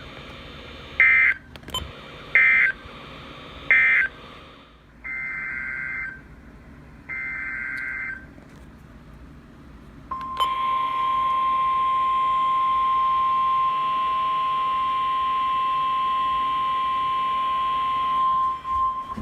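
NOAA Weather Radio SAME data bursts: three short, loud warbling digital bursts, then two longer ones. About ten seconds in, the steady 1050 Hz weather radio alert tone starts and holds for about nine seconds, signalling a new warning to come.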